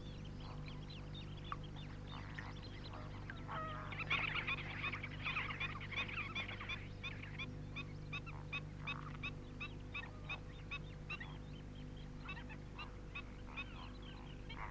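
Flock of greater flamingos calling with goose-like honks. The calls swell into a dense chorus about four seconds in, then thin to a steady run of short calls, several a second. A steady low hum runs underneath.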